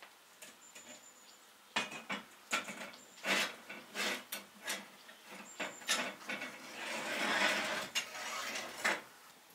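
Metal clanking on top of a tandoor: long metal tongs and the metal cover of the tandoor opening being handled, a string of sharp clanks with a longer scrape about seven seconds in.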